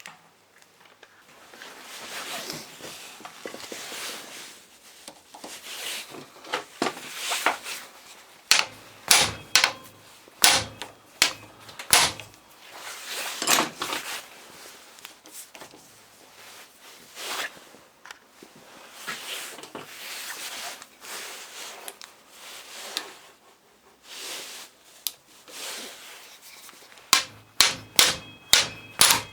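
Metal starter-motor parts and hand tools handled on a workbench: rubbing and scraping broken by sharp knocks and clicks, with quick runs of several knocks about a third of the way in and again near the end.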